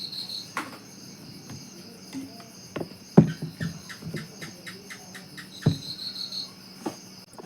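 Insects chirring steadily and high-pitched, with scattered sharp clicks and knocks; the loudest click comes about three seconds in and another near six seconds.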